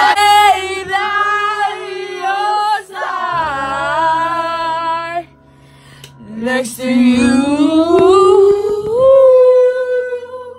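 A girl singing loudly in long held, wavering notes, with a short break about halfway; after it the voice slides slowly upward and holds one long note.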